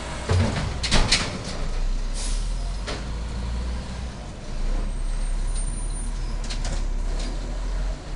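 Peterbilt garbage truck with an Amrep automated side loader running, its engine a steady low rumble, with several sharp knocks and clanks in the first three seconds and again about six and a half seconds in, and a short hiss about two seconds in.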